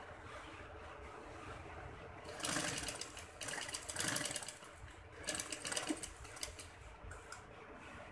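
Domestic sewing machine stitching a seam in short runs: three bursts of rapid, even needle clicking, starting a little over two seconds in, around four seconds and around five to six seconds, with quieter pauses between.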